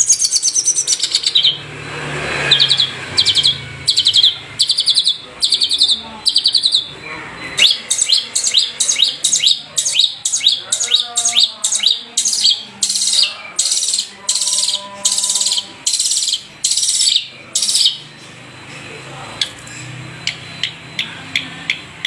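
Long-tailed shrike (Madura cendet) singing a fast, high, scratchy chattering song in short repeated phrases, about two a second in places, with a few falling trills.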